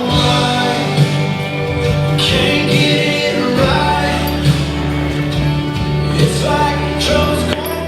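Background song with singing over a steady beat, sounding country in style.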